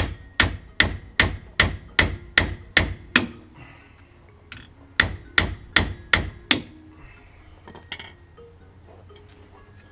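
Hammer blows on a Jeep Grand Cherokee's rusted, seized front wheel hub, beating it to break it loose. The blows fall about two and a half a second with a metallic ring: a run of about nine, a pause, five more, then a single blow.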